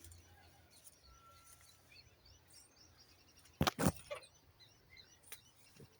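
Small wild birds chirping, many short calls scattered across each other, with one brief high whistled note about a second in. Two sharp knocks a little past halfway stand out as the loudest sounds.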